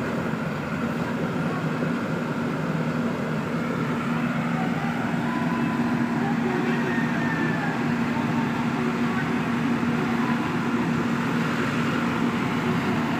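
JCB 3DX backhoe loader's diesel engine running steadily under load with a constant hum while the backhoe arm digs soil.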